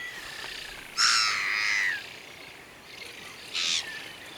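Young Eurasian spoonbill begging for food with harsh, buzzy calls: one call lasting about a second, then a shorter one about three and a half seconds in.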